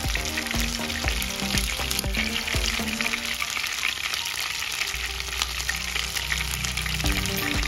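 Sea bass pieces coated in turmeric, lemongrass and garlic paste shallow-frying in hot vegetable oil, with a steady sizzle full of small fast crackles and pops.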